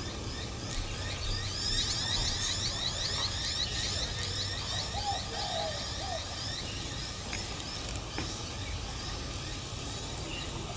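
Birdsong over a steady low outdoor background: a fast trill of high, repeated down-slurred chirps for a few seconds, then a few short whistled notes about halfway through.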